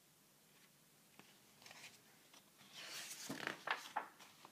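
Paper pages of a picture book rustling as they are handled and turned. Soft crackling rustles come in the second half, after a nearly silent start.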